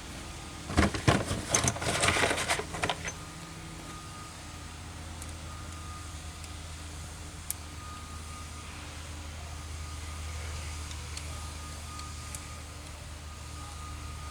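Metallic clicking and clatter for about two seconds as a small bolt is fitted to the fuel injection pump's control rack, then a steady low hum runs on.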